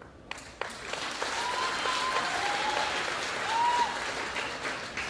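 Crowd applauding, starting with a few sharp claps about half a second in and swelling, with a few short whistles over it. It fades near the end.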